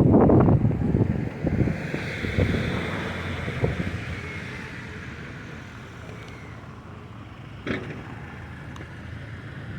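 Wind buffeting the microphone of a camera carried on a bicycle in a snowstorm, loud gusts at first that ease off to a softer rush after a couple of seconds. A single short click about eight seconds in.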